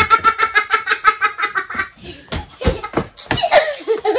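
A child laughing hard in a fast run of high-pitched ha-ha pulses for about two seconds, with more laughter near the end.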